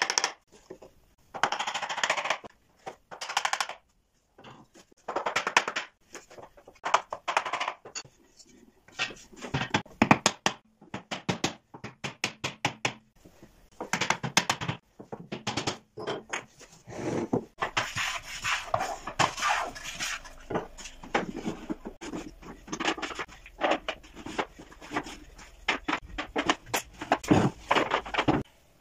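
Wooden table frame and drawer parts knocked, tapped and set down on a wooden workbench: a long run of sharp wooden knocks and clicks, broken by several short rasping strokes of about a second each.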